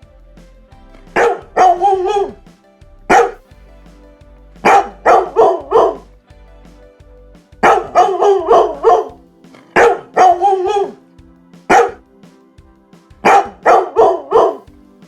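A dog barking in repeated bursts of one to five quick barks, with pauses of about a second between bursts. Faint background music runs underneath.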